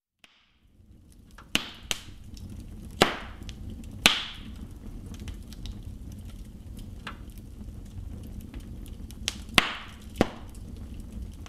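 Oak and hornbeam logs burning in a fireplace: a low steady rumble of the fire with scattered sharp crackles and pops.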